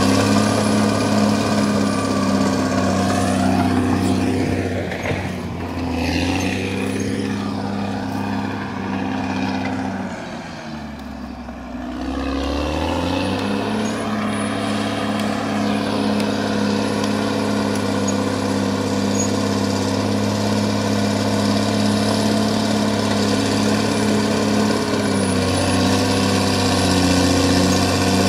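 CAT D6R XL bulldozer's diesel engine running steadily under working revs. Near the middle the revs drop for about two seconds, then rise back up and hold steady.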